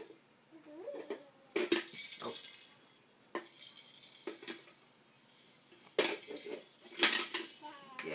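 Plastic ring-stacking toy rattling and clacking in several bursts as its rings are handled, the loudest burst near the end.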